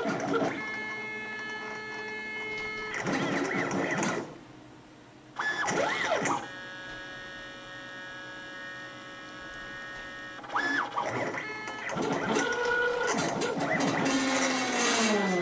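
CNC plasma cutting table running its program: the gantry and torch-carriage stepper motors whine steadily in two long stretches while the torch traverses, broken by louder, noisier passages of arc cutting and carriage moves, with a brief quieter dip about four seconds in.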